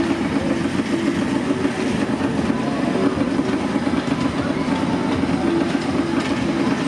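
Steady, loud mechanical din of fairground rides, with a rattle like the wheels of a kiddie-car ride running on its small rail track.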